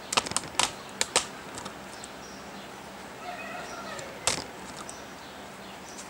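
Sharp clicks: a quick cluster of about five in the first second or so, and a single louder one about four seconds in.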